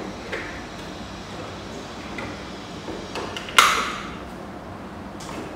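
Hard plastic cabinet parts knocking and clicking as a panel is pressed into the frame's locking slots, with one loud, sharp snap about three and a half seconds in.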